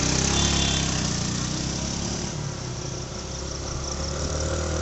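Mahindra Gusto scooter engine running steadily at low riding speed, with a steady rush of wind and road noise over it. The engine eases off a little about halfway through and picks up again near the end.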